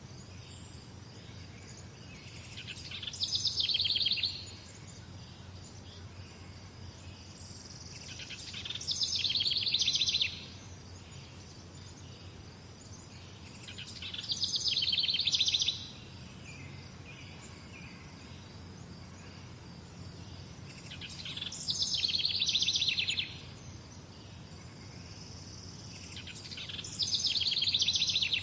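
A songbird repeating the same fast trilled song about every six seconds, each phrase swelling in loudness over a second or two and then stopping sharply. A steady low background hum runs underneath.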